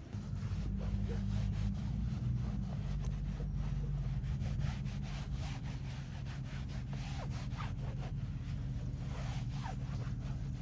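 A small motor hums steadily, starting at once, while something is rubbed and scraped with many small scratchy strokes.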